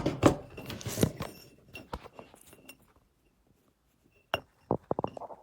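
Glass and small tools being handled and set down on a hard surface: scattered clinks and taps, a pause, then a quick run of sharp knocks near the end.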